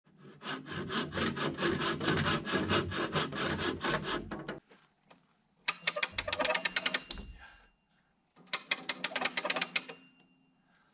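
A hand tool rasping into a wooden log in fast, even strokes, in three bursts with short pauses between, the first the longest.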